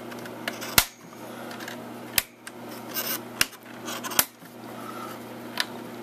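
Sharp plastic clicks as memory modules are pressed home in a Dell OptiPlex GX620's DIMM slots and the retaining latches snap shut. There are four loud clicks, about one every second, with smaller ticks between them, over a low steady hum.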